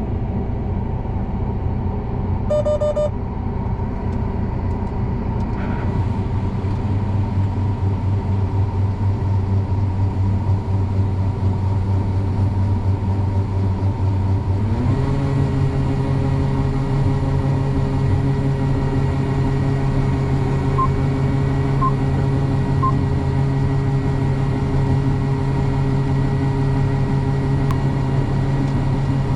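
Combine harvester's engine running steadily, its hum stepping up in pitch and getting louder about fifteen seconds in. A short electronic beep sounds near the start, and three quick faint beeps come later.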